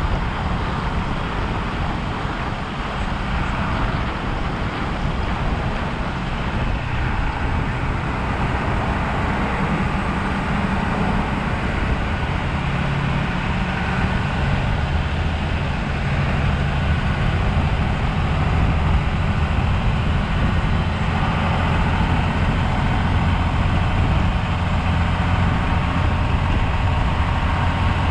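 Pickup truck towing a trailer loaded with a shipping container, its engine running with tyre and wind noise, heard from a camera mounted outside on the truck's side. The low engine hum grows a little stronger about halfway through.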